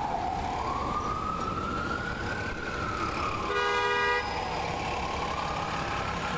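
Ambulance siren in a slow wail, its pitch sliding down, up, down and up again, over the rumble of street traffic. A little past halfway a horn sounds briefly, the loudest moment.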